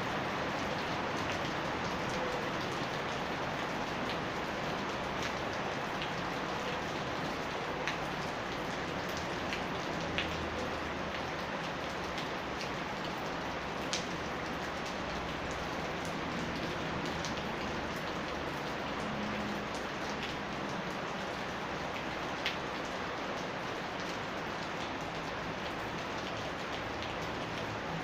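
Steady rain falling, with a few louder drops ticking sharply now and then.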